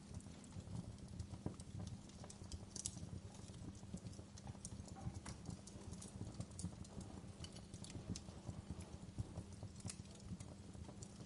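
Wood fire crackling, with irregular sharp pops and snaps scattered throughout over a steady low rumble and the soft hiss of rain.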